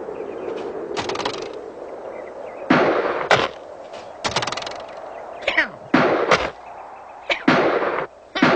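Cartoon sound effects: a run of sudden bangs and swishes a few seconds in, some with a short falling pitch, separated by brief gaps.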